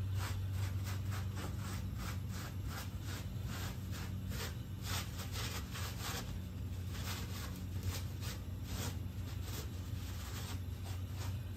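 Wads of paper towel dabbed and rubbed against rough, freshly stained plaster rock to blot off excess stain: a run of short scratchy dabs, several a second, with the towel shredding on the rough surface. A steady low hum lies underneath.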